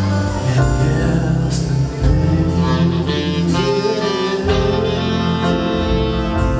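Live big band playing jazz, with bass and drums steady underneath; a saxophone plays a melodic line out front partway through.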